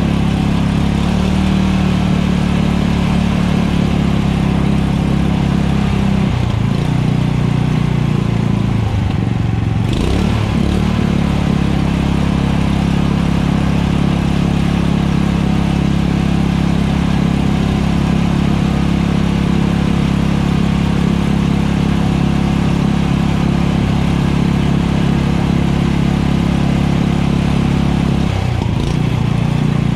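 Portable fire pump engine running loudly and steadily. Its speed dips and recovers between about six and eleven seconds in, and changes again near the end.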